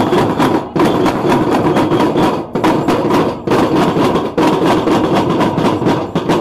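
Percussion group playing rapid drum and knock strokes in a steady rhythm, with short breaks between phrases.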